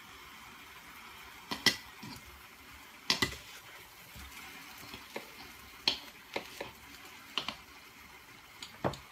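Hot syrup sizzling and bubbling on a freshly cooked künefe in its metal plate, a steady crackling hiss. Several sharp clicks from a metal utensil at the plate break through it.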